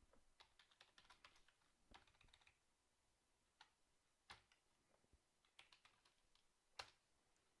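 Faint computer keyboard typing: irregular single keystrokes, some in quick little runs.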